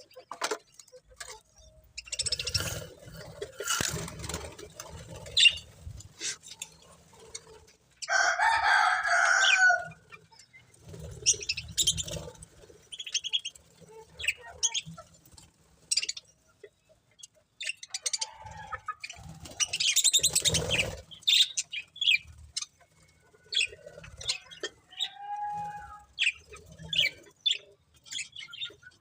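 Pet budgerigars chirping and chattering in many short calls, with a louder, longer sound lasting about two seconds some eight seconds in.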